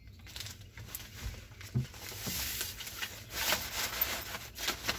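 Nylon carry bag and the folded pop-up goal's fabric-covered frame and netting rustling and scraping irregularly as the goal is packed into the bag.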